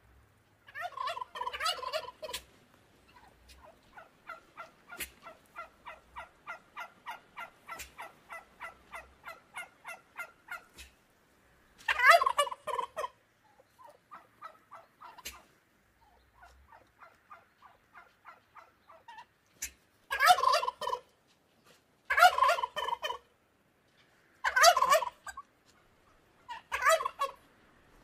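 Turkey gobbling: six loud gobbles. Between them come runs of quieter short calls, evenly spaced at about three a second.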